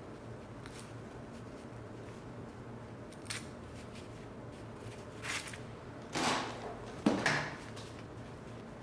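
Handling sounds of fabric being folded and pressed: a small click about three seconds in, then a few brief scrapes and a sharp knock between five and seven and a half seconds in as a clothes iron is lifted and set down on the fabric, over a low steady room hum.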